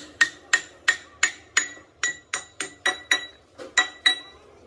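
Hammer blows on metal in a steady run of about a dozen strikes, roughly three a second, each with a short metallic ring. The blows stop near the end.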